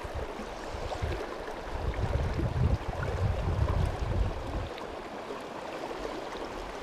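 Steady rushing of a shallow river running over rocks, with a heavier low rumble through the first four or so seconds.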